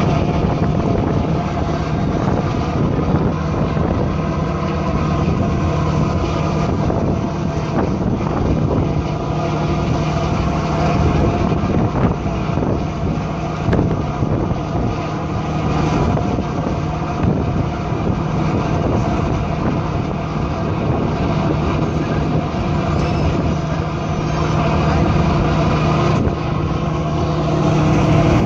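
A tour boat's engine hums steadily, with a constant rush of wind and water over it.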